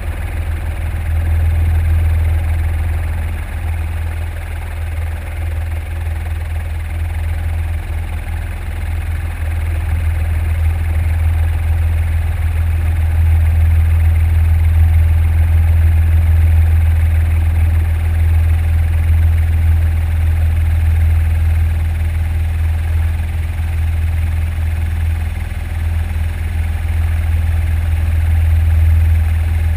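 Eurocopter EC120B helicopter in flight on a long final approach, heard from on board: a steady, loud, low drone of rotor and turbine that swells slightly partway through.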